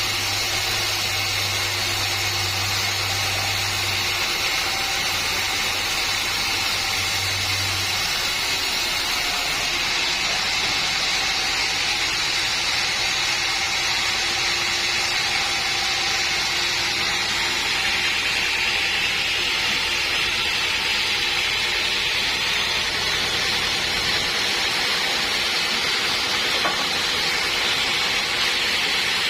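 Sawmill machinery running steadily: a continuous noisy mechanical sound, with a low hum that stops about eight seconds in.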